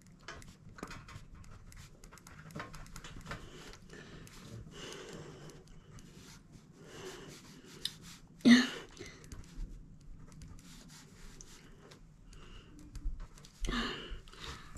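Pen writing quickly on workbook paper in many short strokes, with the writer's breathing. One short, louder sound comes about eight and a half seconds in.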